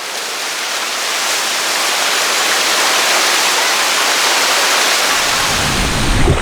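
Waterfall pouring into its pool: a steady, even rush of water. About five seconds in, a low rumble joins it.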